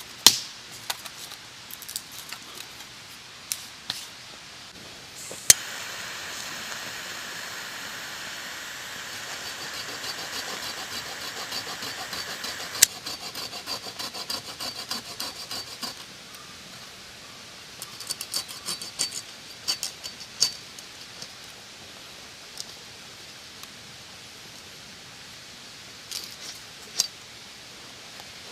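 Light metal clinks and clatter of stainless-steel fire-pit parts being handled, with a steady hiss that starts suddenly about five seconds in and cuts off about seven seconds later.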